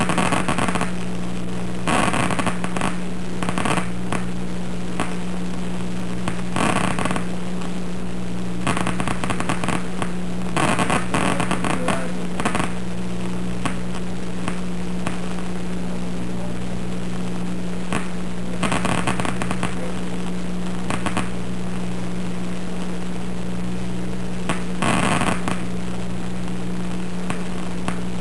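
Action potentials from a single simple cell in the primary visual cortex (V1), amplified and played through a loudspeaker: irregular bursts of rapid crackling clicks, each lasting under a second to about two seconds, that mark the cell firing as the bar of light crosses its receptive field. A steady electrical hum runs underneath.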